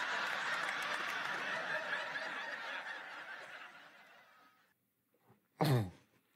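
Sitcom laugh track: audience laughter that dies away over the first four or five seconds. Near the end comes one short vocal sound, falling steeply in pitch.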